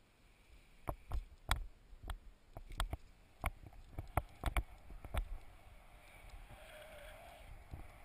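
A paraglider pilot's footfalls on a grassy launch slope as he runs to take off: about a dozen uneven thumps. They stop about six seconds in, and a steady rush of wind takes over as he lifts off.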